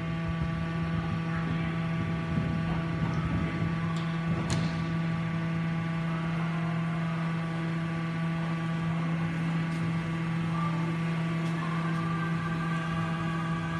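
A steady, even machine hum with a fixed pitch, with a couple of faint clicks about four seconds in.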